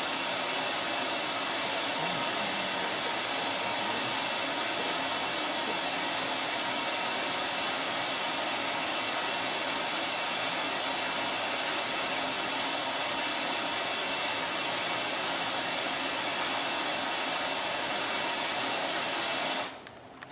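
Steady, loud white-noise hiss that cuts off suddenly near the end.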